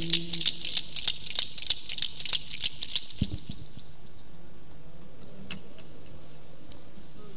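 Rapid clicking and rattling close to a microphone, about four or five clicks a second, thinning out and stopping about three seconds in. A low thump follows, then a couple of stray clicks, over a steady low hum from the sound system.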